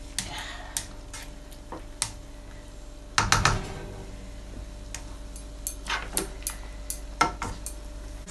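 A spatula stirring stew in a non-stick frying pan, clicking and knocking against the pan, with a louder clatter of knocks about three seconds in and more scattered clicks later.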